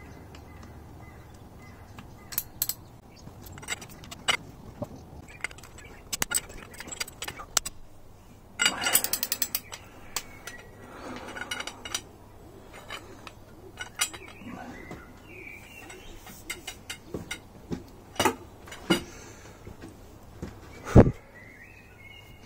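Hand tools loosening the crankcase bolts on the underside of a Yamaha XJ650 motorcycle engine: metal clicks, clinks and short scraping runs, including a quick run of ratchet clicks about nine seconds in, and a sharp knock near the end.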